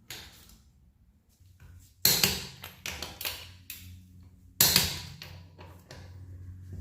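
Click-type torque wrench set to 100 lb-ft snapping over on a minivan's wheel lug nuts: two sharp metallic clicks about two and a half seconds apart, with fainter clinks between.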